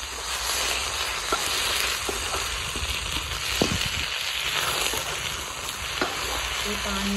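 Carrot sticks and ajwain sizzling in hot oil in a kadhai, with a steady hiss, while a steel ladle stirs them and knocks against the pan a few times, loudest about three and a half seconds in.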